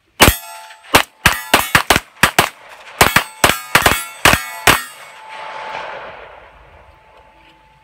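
Pistol shots from two shooters firing side by side: about fifteen sharp reports in quick, uneven succession over the first four and a half seconds. A soft rushing noise swells and fades after the last shot.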